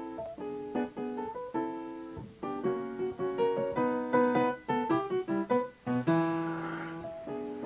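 Piano music: a flowing run of quickly struck notes, with a chord held for about a second near the end.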